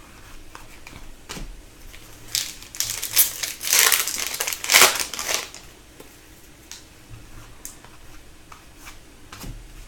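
Hockey trading cards and their pack wrappers being handled, crinkling and rustling, with a few small clicks. The crinkling comes in a cluster of bursts, loudest a little before the middle.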